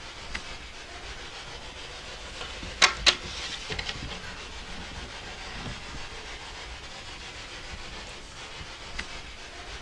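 Steady hiss of static or noise throughout, broken by two sharp clicks close together about three seconds in and a few fainter ticks.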